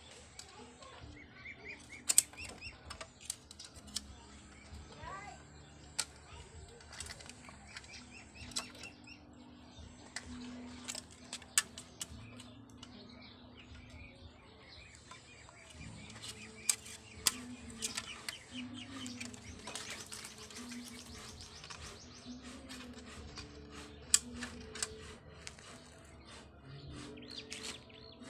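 Scattered sharp clicks and taps as hands work a bicycle brake lever and handlebar fittings while fitting the brake wire, with small birds chirping in the background.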